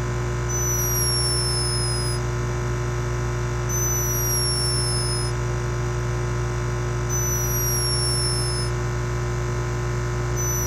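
A sleeping hummingbird snoring: a high, thin, whistle-like squeak that falls slightly in pitch over about a second and a half, repeated four times roughly every three and a half seconds. Under it runs a steady low hum, which is put down to the camera turning up its microphone sensitivity.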